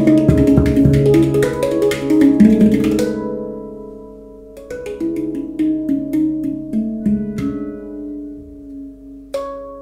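PantaGongS handpan played with the hands: a quick run of struck, ringing notes fades out about three seconds in. Slower single notes follow, then one last note is struck near the end and left to ring.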